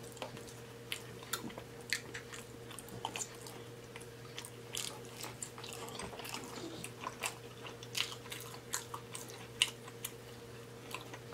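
Close-miked chewing and lip smacking of syrup-soaked pancakes: many irregular wet clicks, with a steady faint hum underneath.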